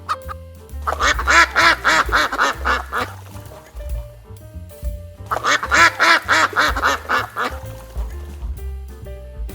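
A bird, most likely waterfowl, calling in two runs of rapid repeated calls, each about two seconds long, over steady background music.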